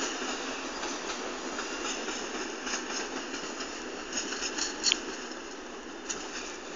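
MS96 electric multiple unit rolling slowly through the station: steady running noise with irregular clicks of the wheels over rail joints and points, and a brief high wheel squeal about five seconds in.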